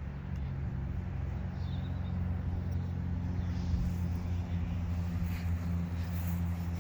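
A motor vehicle's engine running steadily: a low, even hum.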